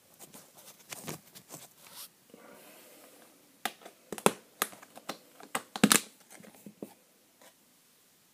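Packing material being pulled off a parcel by hand: wrapping and tape tearing and crinkling in a run of sharp, irregular crackles and snaps, the loudest about four and six seconds in, stopping about seven seconds in.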